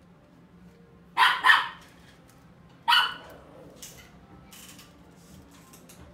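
White Pomeranian puppy barking: two quick barks a little over a second in, then a third about a second and a half later.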